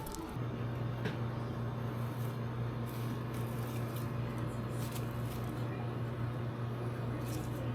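A steady, low-pitched machine hum with faint, scattered clicks.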